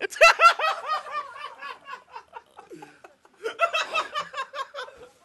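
Men laughing: a burst of repeated ha-ha pulses at the start that fades out, then a second bout of laughter about three and a half seconds in.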